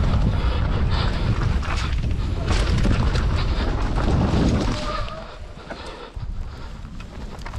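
Mountain bike riding fast down a dirt forest trail: tyres rumbling over the ground and the bike clattering over bumps, with wind buffeting the microphone. It goes quieter about five seconds in.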